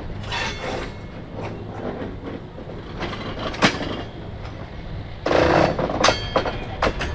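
A freight train moving along the track: a centercab diesel locomotive's engine runs steadily underneath, with clanks and clatter from the wheels and cars on the rails. A louder burst of noise lasting under a second comes about five seconds in, followed by a few sharp knocks.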